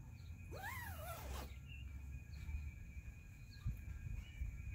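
A drawn-out animal call, about a second long, rising and then falling in pitch, early on over a steady low rumble.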